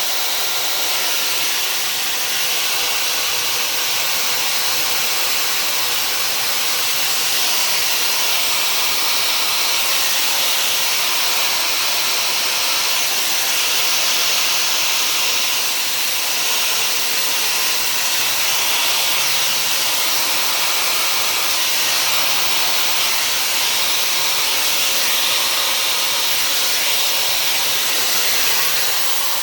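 Dyson hair dryer with a diffuser attachment running steadily: an even, high-pitched rush of air.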